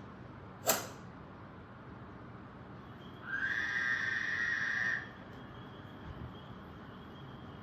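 A sharp click, then about two and a half seconds later a high-pitched whistle-like tone that slides up briefly and holds steady for about a second and a half, a sound effect played for the dogs, over a low steady hum.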